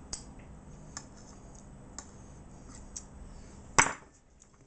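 Faint ticks about once a second from a kitchen knife working over a plate, then one loud sharp knock near the end as the knife is set down on a wooden cutting board.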